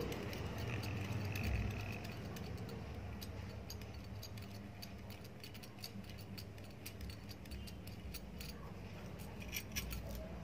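Faint small metal clicks and light rattling as an electric iron's thermostat assembly and its brass contact strips are worked loose by hand from the soleplate, with a few louder clinks near the end as it comes free. A steady low hum runs underneath.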